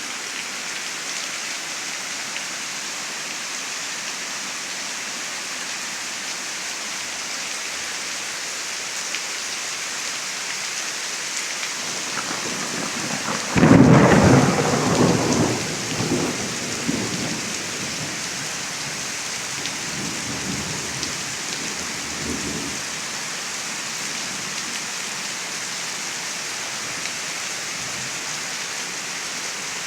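Steady rain hissing throughout, with a sudden loud thunderclap about halfway through that rumbles on for a few seconds, and fainter rumbles of thunder a few seconds after.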